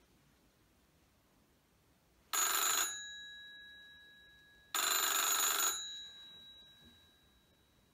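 Old rotary-dial desk telephone's bell ringing twice, a short ring about two seconds in and a longer one about five seconds in. After each ring the bell keeps sounding and slowly dies away.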